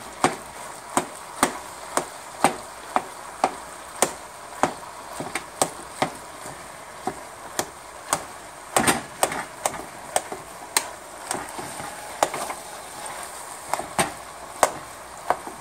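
Spoon knocking against the side of a stainless steel stockpot while stirring and breaking up ground meat and sausage, a sharp clack about twice a second, with a quicker flurry of knocks a little before the middle.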